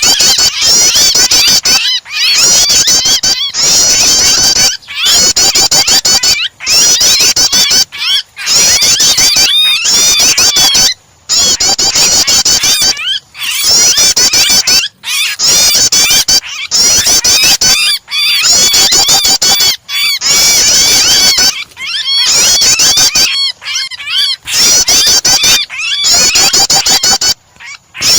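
Loud, dense, rapid high chirping and scolding calls of prenjak (prinia) mixed with the distress cries of a trapped bird, a bird-training starter recording. It is broken by short gaps every second or two.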